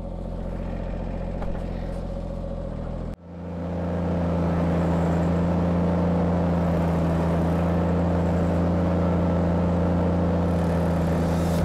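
Compact tractor engine running steadily, driving a PTO-powered prototype stump grinder with a high-speed rotor that spins sideways. About three seconds in the sound breaks off suddenly, then comes back louder and steady as the cutter grinds into a tree stump.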